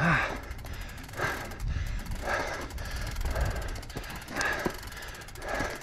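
Mountain bike being pushed by hand up a steep, loose dirt trail. The rear hub freewheel ticks as the wheels roll, and a scuff of noise comes about once a second.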